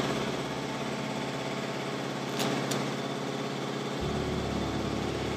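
Honda VFR800 motorcycle engine idling steadily. Two faint clicks come in the middle, and a deeper low hum joins about four seconds in.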